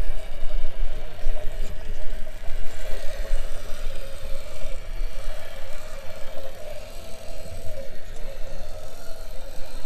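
Electric motor and gearbox of an RC scale trial truck whining steadily as it crawls over rocks at low speed, over a low rumble.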